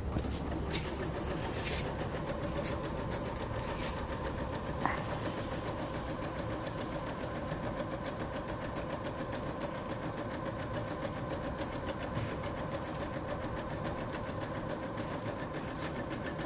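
Kenmore Elite electronic sewing machine running steadily at an even speed, its needle stitching in a rapid, regular rhythm. There is a brief, sharper sound about five seconds in.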